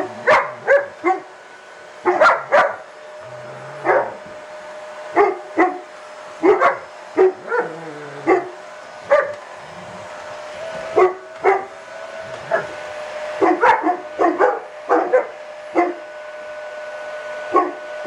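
Dogs barking over and over, short sharp barks in quick bunches, at a vacuum cleaner hose, with the vacuum's steady whine running underneath.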